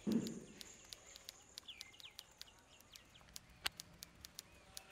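Faint outdoor ambience with a few short bird chirps about a second and a half in, a thin steady high tone that fades out around halfway, and scattered sharp clicks, one louder near the end. A low thud sounds at the very start.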